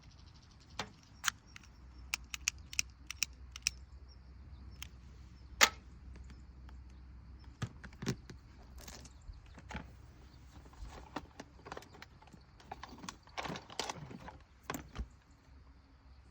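Dry wood snapping and knocking during campfire making: sharp cracks at irregular intervals, the loudest about five and a half seconds in, with a busier run of snaps and rustling near the end.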